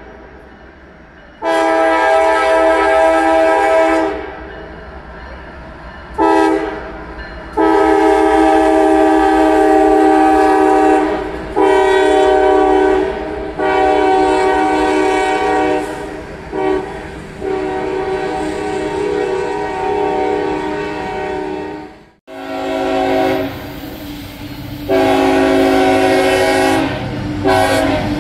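Freight locomotive air horn sounding a series of long and short blasts, each a chord of several notes, over the steady low rumble of the train. About 22 seconds in the sound cuts off abruptly and a different horn with lower notes takes over.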